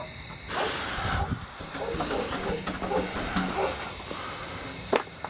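A firework fuse catching and hissing as it burns down, spitting sparks, with a couple of sharp pops near the end.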